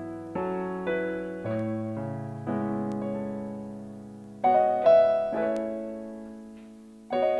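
Electronic keyboard with a piano sound, playing slow broken chords (arpeggios) over held bass notes. Each note rings and fades, and a louder chord comes in about four and a half seconds in.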